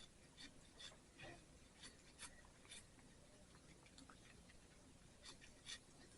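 Faint, irregular clicks and scrapes of a cat gnawing on a pork shoulder bone.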